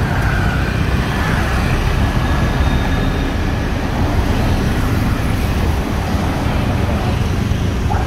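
Steady roadside traffic noise with a deep engine rumble from passing and manoeuvring vehicles.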